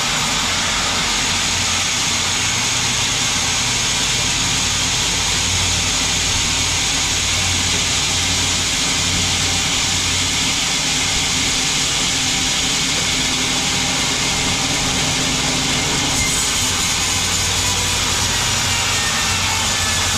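Sawmill machinery running steadily: a low engine hum under a loud, even hiss.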